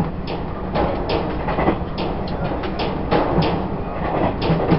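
Running noise of a Taiwan Railways E1000 push-pull Tze-Chiang express heard on board: a steady rumble of the moving train, with irregular clicks and knocks from the wheels and track.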